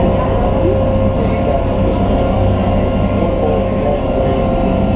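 Ferry boat engine running steadily under way: a continuous low drone with a few steady higher tones.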